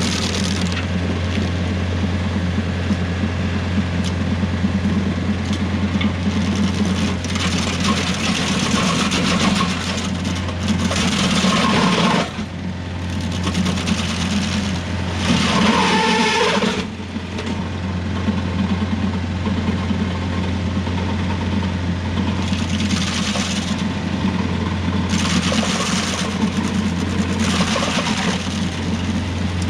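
Rural King RK55 tractor engine running steadily, driving a Woodland Mills WG24 PTO stump grinder. Stretches of harsher grinding noise come and go several times, lasting from about one to several seconds.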